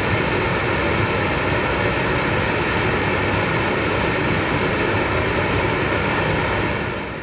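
A 250,000 BTU heater burner running, its flame jetting from the nozzle: a loud, steady rush with a faint high whine, fading out near the end.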